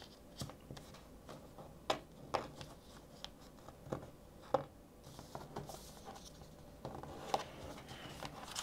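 A sheet of paper being folded by hand on a desk: faint rustling and sliding of paper with a few short sharp taps as the fold is pressed into a crease.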